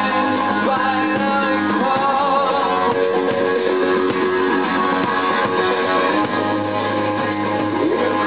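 Live rock band playing, with guitar to the fore and a male lead voice singing into the microphone.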